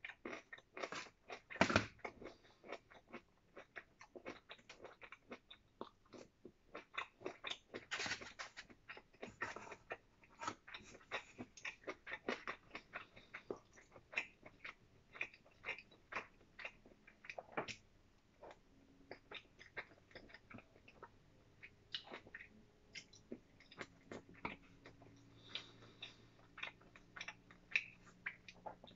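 A person eating with chopsticks close to the microphone: chewing with a steady run of small clicks and smacks, and a couple of louder clicks about two and eight seconds in.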